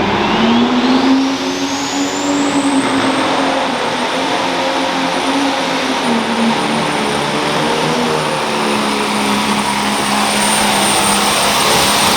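Pulling tractor's engine running hard under full load during a pull. A high whine climbs over the first few seconds and then holds steady above the engine's wavering pitch.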